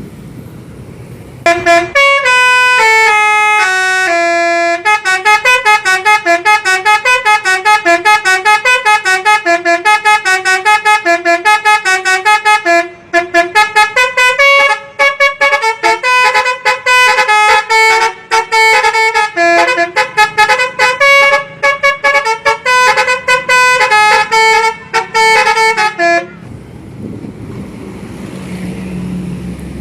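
Basuri telolet multi-tone bus horn playing a long, fast melody of stepped notes, often two notes at once, with brief breaks. It stops a few seconds before the end, leaving a low background rumble.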